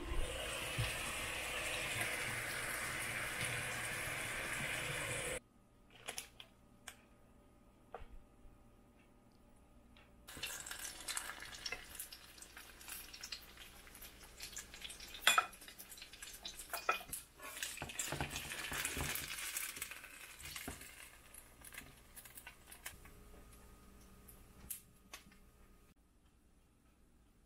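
Dumplings sizzling steadily in a frying pan for about five seconds, then cutting off suddenly. After that comes a metal spatula scraping the pan and light clinks of cookware as the dumplings are lifted out onto a plate.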